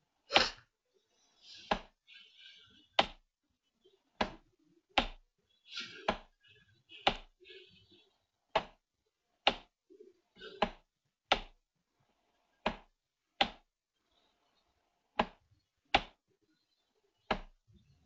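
Computer mouse clicks close to the microphone: about sixteen sharp single clicks, roughly one a second, as port rows are selected one after another.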